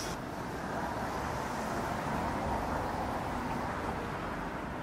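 Steady background noise, an even rumble and hiss without distinct events.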